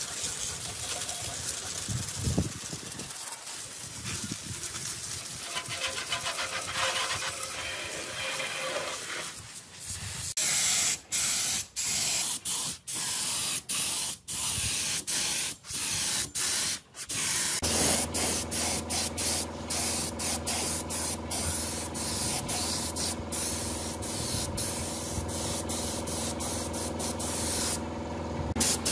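A high-pressure water jet hisses and splashes against a rusty cast-iron lathe bed. About a third of the way in, this gives way to a paint spray gun hissing in short bursts that stop and start many times. Later a steady machine hum joins under the spraying.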